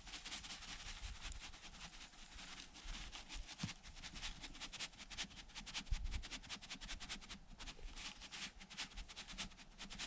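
Waxed trapping dirt being spread over a set foothold trap: a dense, irregular run of small crackles and ticks as the granular dirt lands and is worked over the trap, with an occasional soft thud.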